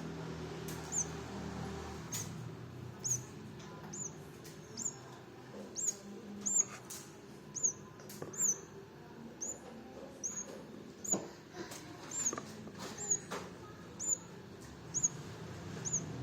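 Baby birds chirping: a short, high-pitched chirp repeated about once a second, steadily.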